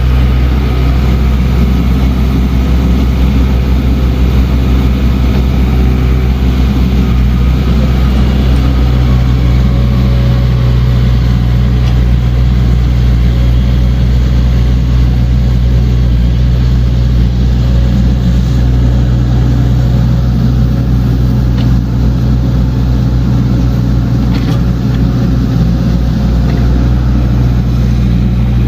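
Diesel engine of heavy earthmoving machinery running steadily at a constant speed, with a couple of faint ticks in the second half.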